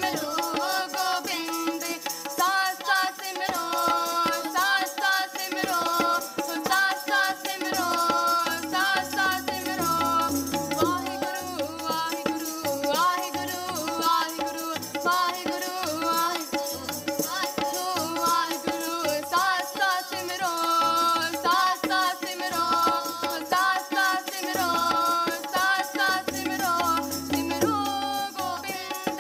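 Sikh shabad kirtan: a girl singing to harmonium, with tabla drums playing a continuous rhythm.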